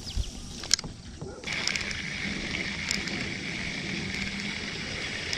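Ambient sound from a kayak on the water: a few light clicks, then, about a second and a half in, an abrupt change to a steady hiss of water and wind.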